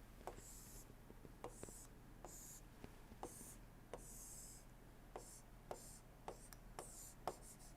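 Faint scratching of a pen drawing a diagram, in short strokes with small taps of the pen tip between them.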